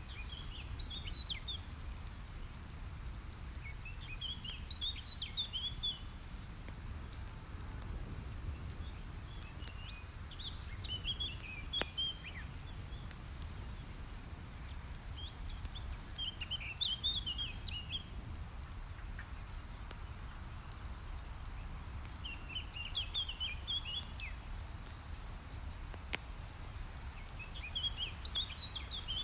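Campfire crackling with sparse, sharp pops over a steady low background noise. A songbird sings a short chirping phrase about every six seconds.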